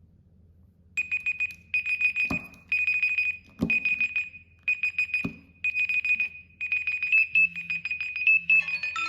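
Smartphone alarm beeping: a high electronic beep repeated rapidly in short groups, about one group a second, starting about a second in. Near the end a second, melodic alarm tone starts over it.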